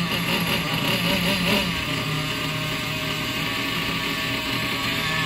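Hong Nor single-cylinder nitro glow engine of an RC buggy idling steadily on a stand. It has a freshly replaced clutch shoe and new tuning, and it holds its idle without stalling.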